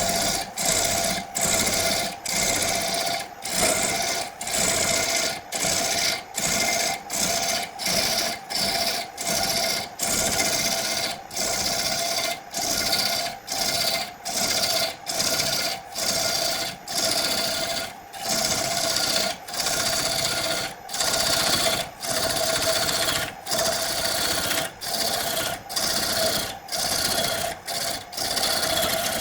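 Hand tool working wood in steady back-and-forth strokes, about three every two seconds, each stroke a rasping scrape with a brief gap at the turn, over a steady hum.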